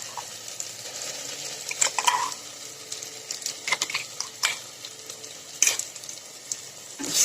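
Onions frying in oil in a pan, with a steady soft sizzle. A metal spoon taps and scrapes against the pan or a container several times. Near the end the sizzle suddenly grows louder.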